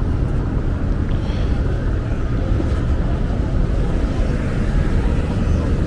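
Wind buffeting the microphone in a steady low rumble, over the general noise of a downtown street.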